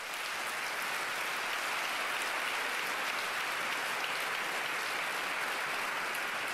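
Large crowd applauding, a steady, even wash of clapping that holds level throughout.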